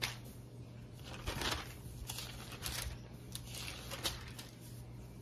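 Bible pages being leafed through to find a passage: a series of soft paper rustles and flicks, over a faint steady low hum.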